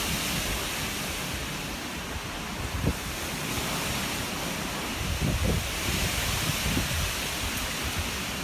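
Steady rushing noise with several low gusts of wind buffeting the microphone, near three seconds in and again around five and a half seconds.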